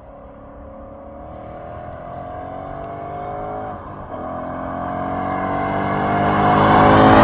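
2016 Ford Mustang GT's 5.0 V8, with its resonators deleted and SLP LoudMouth II axle-back exhausts, accelerating, heard from inside the cabin with the windows up. The engine note rises, drops briefly at a gear change about four seconds in, then climbs again and gets louder.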